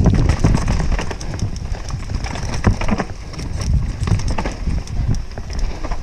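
Trek Session downhill mountain bike rattling over a rough trail. Tyre rumble runs under irregular sharp knocks and clatter from the bike, and the sound carries the closeness of a chest-mounted action camera.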